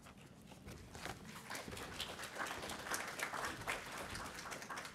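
Audience applauding, dense irregular clapping that builds up over the first second.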